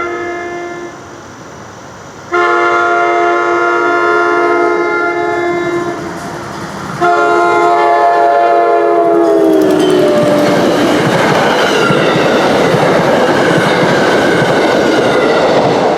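Nathan K5LA five-chime air horn on a commuter train sounding three blasts: a short one ending about a second in, a long one, then a third that drops in pitch as the train passes. The horn gives way to the loud rush and wheel clatter of the train going by.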